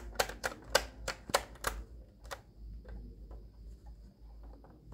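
An irregular run of sharp clicks and taps from handling the plastic cabinet of a Sony CFM-155 radio-cassette recorder. They come thick and loud for about the first two and a half seconds, then fainter and further apart.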